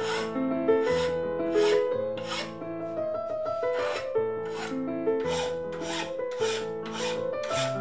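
Hand file rasping across a metal part clamped in a bench vise, a steady rhythm of strokes about one every three-quarters of a second. Background music with piano-like notes plays under the strokes.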